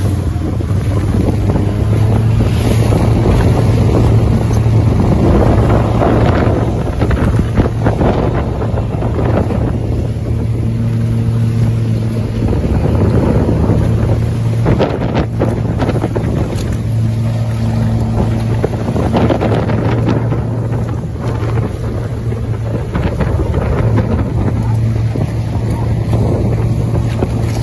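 A motorboat under way in rough water: its engine drones steadily while water rushes and splashes along the hull, swelling and easing every few seconds, with wind buffeting the microphone.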